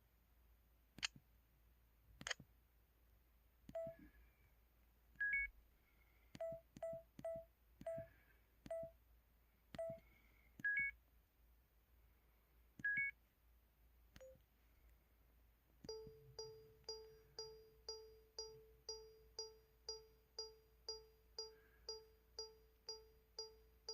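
MS500 mobile phone's camera sound effects played one after another: a few sharp electronic shutter clicks, short single and two-tone beeps, then from about two-thirds of the way through a steady countdown of short beeps about twice a second, typical of a self-timer. The sounds are faint.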